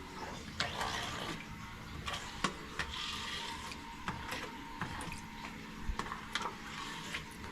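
Squeegee scraping wet chips and coolant across a CNC mill's build plate: an uneven wet swishing with many small scattered clicks of chips.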